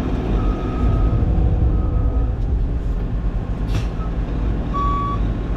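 CAT 323 excavator's diesel engine running steadily, a loud low rumble. Two longer beeps sound in the first half, then a truck's reversing alarm starts near the end with short, regular beeps, as a dump truck backs in to be loaded.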